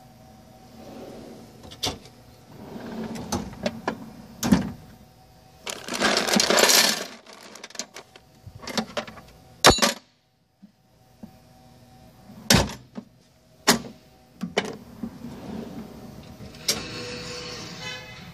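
Steel drawers of a Snap-on KRL1003 roll-cab toolbox being slid open and shut on their runners. There are sharp metal clunks and knocks as drawers close and their contents shift, with two longer sliding rushes: one about six seconds in and one near the end, the second with a fine even ticking.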